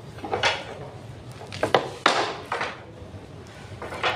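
Several separate knocks and clatters of wooden furniture parts and hardware being handled during assembly, each short and sharp.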